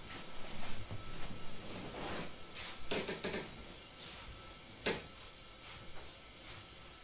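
Soft shuffling footsteps on tatami and the rustle of a kimono and hakama as someone walks away, then a single sharp wooden-sounding knock just before five seconds in, over a faint steady hiss.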